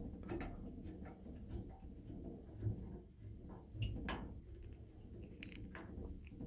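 Screwdriver turning small screws into the metal pilot burner assembly of a tankless gas water heater: scattered light clicks and scrapes of metal on metal.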